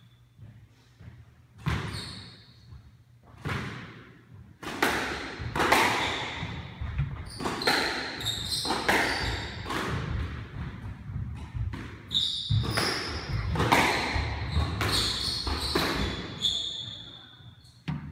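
Squash rally: the ball cracking off the rackets and walls again and again, echoing in the court, with short high squeaks of shoes on the hardwood floor between hits.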